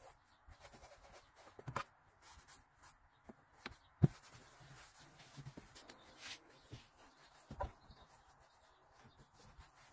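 Faint rubbing of a cloth wiping a car's steering wheel and door trim, with scattered light knocks and one sharp click about four seconds in.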